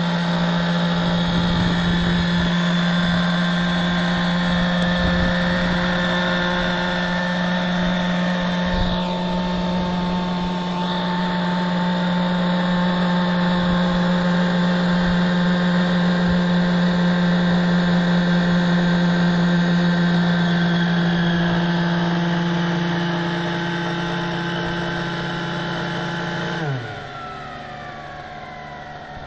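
Two-stroke nitro glow engine of a T-Rex 600 RC helicopter on its first run, running at a steady high speed with the rotors turning. About 27 seconds in, its pitch drops sharply and it falls quieter, running on at a lower note as the rotor winds down.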